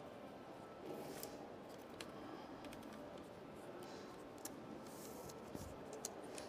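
Faint, scattered clicks and light taps of thin notched wooden kumiko strips being arranged and pressed together by hand in a wooden frame.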